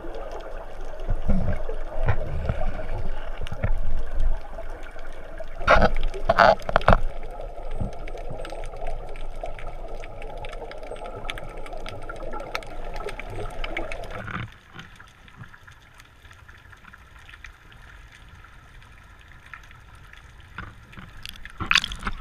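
Muffled underwater water noise with gurgling bubbles, as picked up by a camera in a waterproof housing, with a few louder bubbling surges about six seconds in. It drops noticeably quieter about fourteen seconds in.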